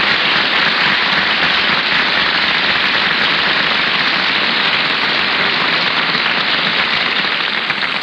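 Steady crackling hiss of an old 1930s radio broadcast recording's surface noise, with no voice or music, easing down near the end.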